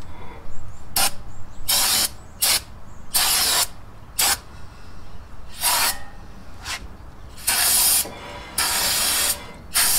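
Aerosol cleaner sprayed in about nine short hissing bursts onto a freshly installed brake rotor's hub, each burst a second or less, with pauses between them.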